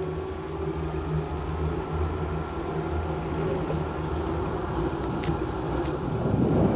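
Riding noise of a bicycle on an asphalt road: a steady rolling hum with wind on the camera's microphone, growing louder near the end.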